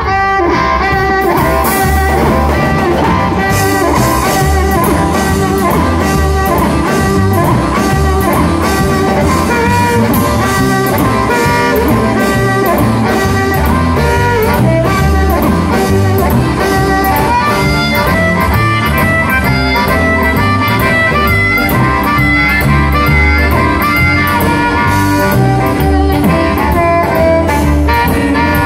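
Live blues band: a harmonica cupped against a microphone plays the lead over a steady beat from drums and electric bass.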